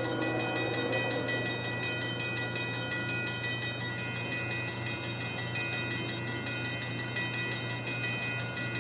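A train running past: a steady sound with a low hum and a few held high-pitched tones.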